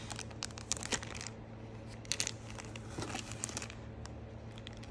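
Clear plastic zip-lock bags crinkling and rustling as they are handled, in irregular clusters of crackles, over a low steady hum.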